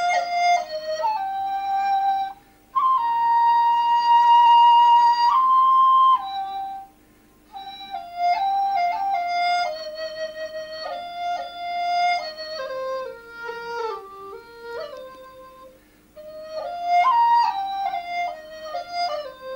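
Background music: a solo flute playing a slow melody in phrases with short pauses, including a long held high note with a slight waver about three seconds in.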